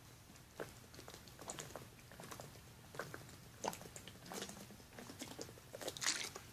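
Irregular small clicks and crackles close to the microphone, scattered unevenly over a few seconds, with a faint low hum beneath.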